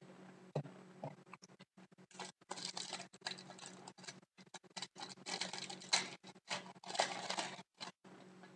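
Hockey trading cards being handled and flipped through: irregular rustling and scraping, a few light clicks in the first two seconds, then denser bursts.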